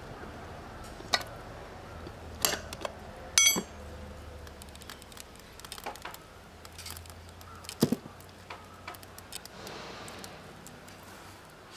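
Steel tire levers clicking, knocking and scraping against the spoked rear wheel rim as the tire bead is pried over it by hand. Sharp metallic knocks come at irregular intervals, the loudest about three and a half seconds in with a brief ring.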